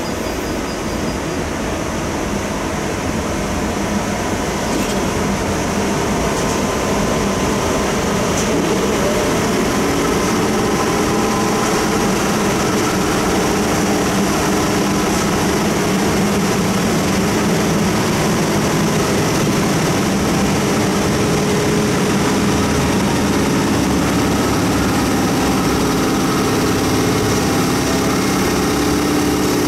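ET22 electric locomotive running slowly past at close range: a steady hum with the rumble of wheels on rail, growing louder over the first ten seconds as it draws near.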